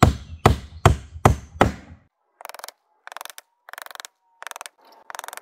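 About five sharp hammer blows, a claw hammer driving 1 1/2 inch roofing nails through a half-inch plywood gusset into a 2x6 truss. After about two seconds the blows stop and are followed by several short bursts of rapid, thin clicking.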